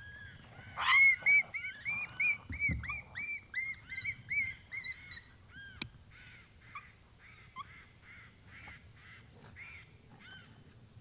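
Coyotes yipping: a rapid string of short, high, arching yelps that thin out into fainter, scattered yips in the second half. A single sharp click comes about six seconds in.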